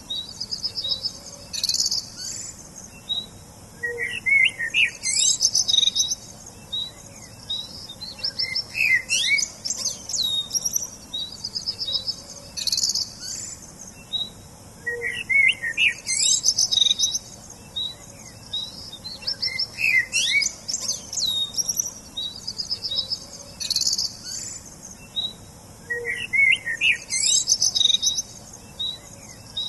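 Songbirds chirping and singing in short, high trilled phrases every second or two, one after another without a break.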